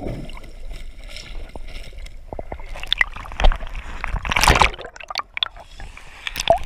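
Sea water sloshing and gurgling around an action camera as it dips under the surface and comes back up, with muffled underwater bubbling and irregular splashes. A louder burst of splashing comes between about three and a half and five seconds in.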